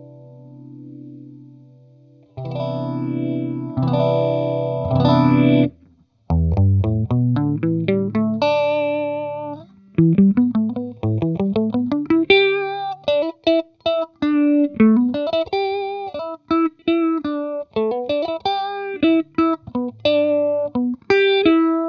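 Clean electric guitar, a Schecter Ultra III on its neck humbucker, played through a GarageTone Oil Can phaser pedal set to a slow sweep and into a clean Vox AC15C1 amp. It opens with ringing and strummed chords, then moves to a rising run of picked single notes, then a quicker single-note melody from about halfway in.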